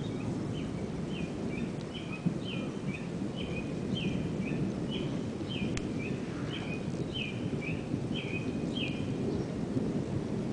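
Steady low rumble of a thunderstorm. Over it, a bird repeats a short downslurred whistled note about twice a second, stopping near the end.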